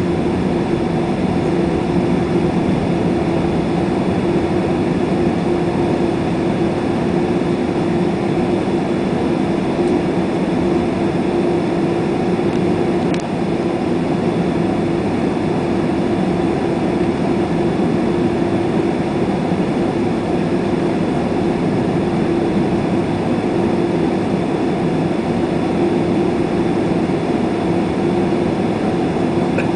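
Steady cabin noise inside a Boeing 767-400ER on the ground before take-off: the jet engines running at low power, an even rush with a constant hum.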